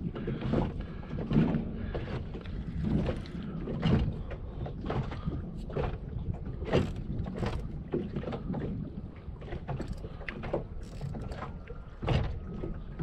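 Small wind-driven waves slapping and knocking against the hull of a small boat, irregular and repeated, over a steady low rumble of wind on the microphone.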